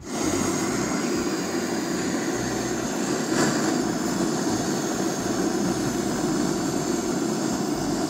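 Handheld gas torch burning with a steady rushing hiss, its flame held against a wooden block; it cuts in abruptly and holds an even level throughout.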